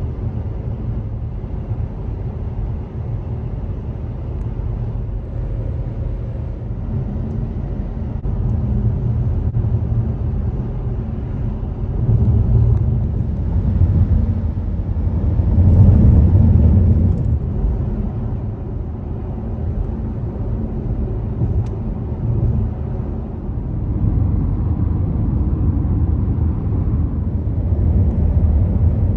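Steady low rumble of a car driving, heard from inside the cabin: road and engine noise, swelling in loudness about twelve and sixteen seconds in.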